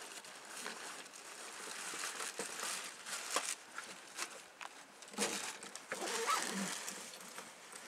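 Rustling and light clicks over a steady outdoor hiss, from a handheld camera being moved as it tilts down the rock face. The rustles grow busier in the second half.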